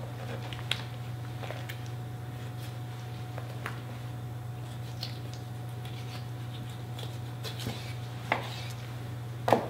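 A knife working through a raw whole chicken on a plastic cutting board: scattered small clicks and taps as the blade meets the board and the joints, the sharpest near the end, over a steady low hum.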